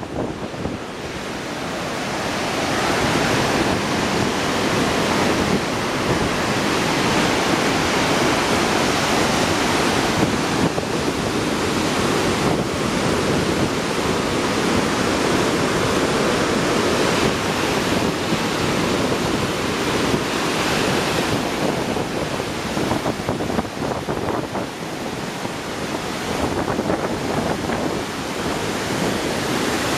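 Magog River white water rushing through the gorge rapids below a dam: a steady rush of churning water. It swells a little about two seconds in, then holds.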